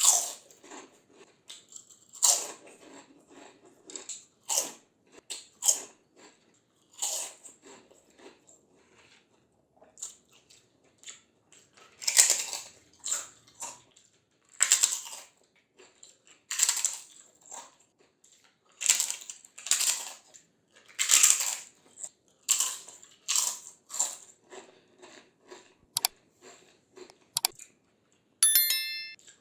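Close-miked biting and chewing of crispy fried papad and fryums, a sharp crunch every second or two. Near the end come two sharp clicks and a quick rattle of ticks.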